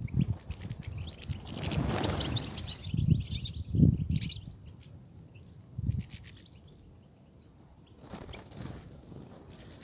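European goldfinches twittering: a quick run of high chirps in the first half, fainter calls later, over a few low thuds.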